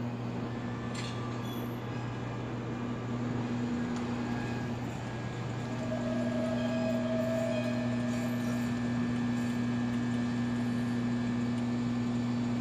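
R160 subway train coming to a stand at the platform, its equipment giving a steady low hum. The hum grows a little louder about halfway through, and a brief whine sounds over it for a couple of seconds.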